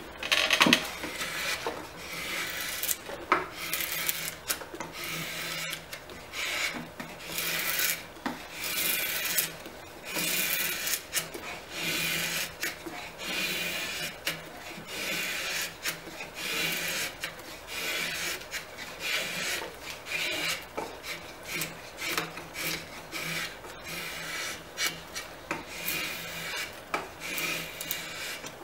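Drawknife shaving the back of a wooden bucket stave, one pull after another, each cutting stroke peeling off a curled wood shaving.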